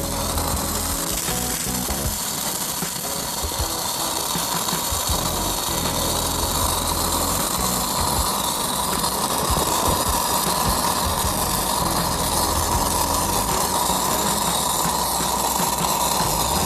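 Stick-welding arc of a 6010 electrode laying the root pass on a steel pipe joint: a steady, dense crackle and sizzle.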